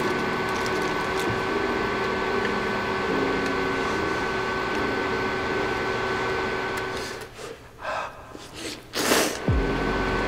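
Spicy ramen broth boiling in a wide shallow pan, a steady bubbling hiss for about seven seconds. It then drops away, and a short loud burst comes about nine seconds in.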